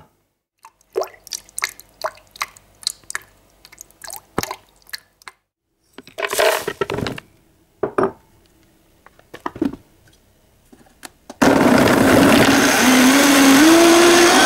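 Ingredients knocking and rattling as they drop into a plastic blender jar, then a high-power blender starts about eleven seconds in and runs loudly, its pitch rising and wavering as it blends carrots, celery, flax seeds and hazelnuts into a sauce.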